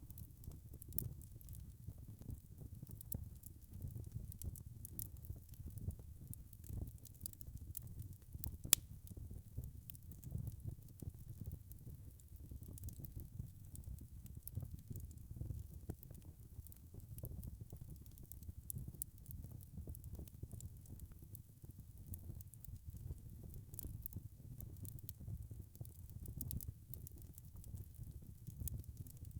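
Log fire burning in a fireplace: a low steady rumble of flames with frequent small crackles, and one sharper pop about nine seconds in.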